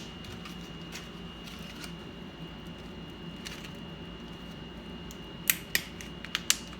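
Sharp clicks of small parts and tools being handled, faint at first, then four loud ones close together near the end, over a steady hum with a faint high whine.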